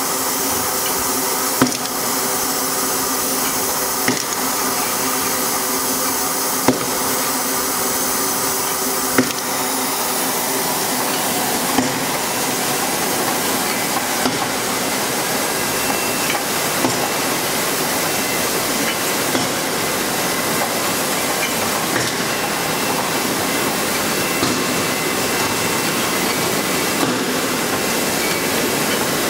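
A sparkling-wine disgorging line running, a steady mechanical hiss and whirr with a sharp clack about every two and a half seconds, one for each bottle whose crown cap and frozen yeast plug are knocked out.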